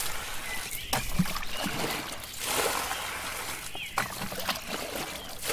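Muddy water sloshing and splashing in several bursts as a plastic bucket scoops it up and tips it out, bailing a shallow ditch.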